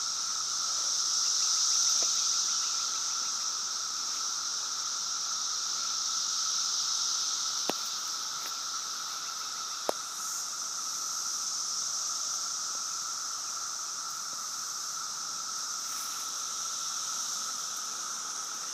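Dense chorus of periodical cicadas: a steady, shrill drone at two pitches, one high and one lower, with two sharp clicks a couple of seconds apart midway through.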